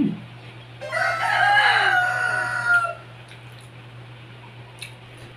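A rooster crowing once, a call of about two seconds that falls in pitch at the end, over a steady low hum.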